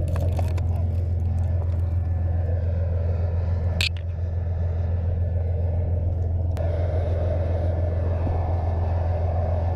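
Steady low rumble of a nearby tracked armored vehicle's diesel engine running, with a brief high-pitched blip about four seconds in.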